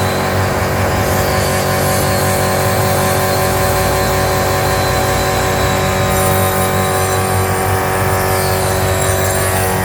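Carriage-type woodworking finger-jointing machine running steadily, a constant machine hum with several steady tones over a noisy hiss.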